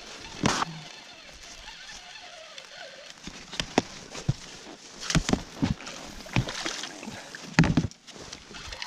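A pike being landed into a boat with a landing net: water splashing and sloshing as the net goes in, with several sharp knocks and clatters of the net and gear against the boat.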